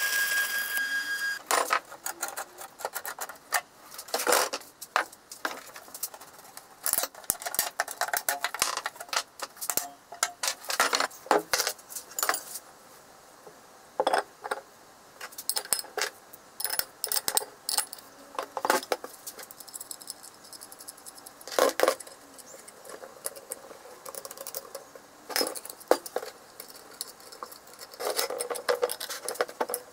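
A stick-welding arc crackles and cuts off about a second in. Then steel parts clink and knock on a wooden workbench: bolts and nuts handled, a steel plate and a wheel hub set down, and a spanner on the nuts. Many short, irregular metallic clicks and clacks, some ringing briefly.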